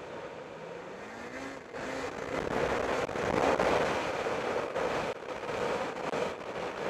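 Snowmobile's 858 engine being broken in, running under way along a snowy trail. It picks up about two seconds in, is loudest a little later, then eases off.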